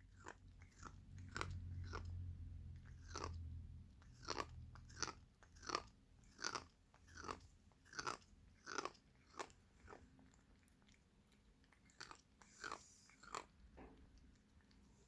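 A pet chewing food with sharp, crunching bites, about one and a half a second, with a short pause before a last few bites near the end. A low hum sits under the first few seconds.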